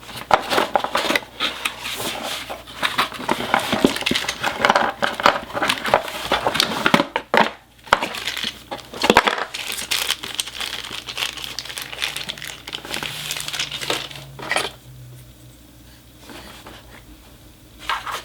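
Unboxing packaging being handled: plastic wrapping crinkling and rustling, with many small clicks and knocks, dense for most of the time and thinning out to a few separate clicks near the end.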